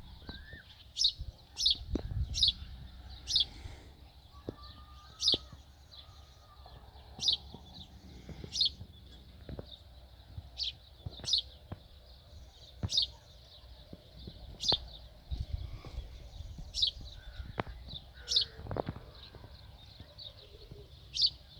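Small birds chirping: a string of short, sharp, high chirps, about one or two a second, over a low background hum.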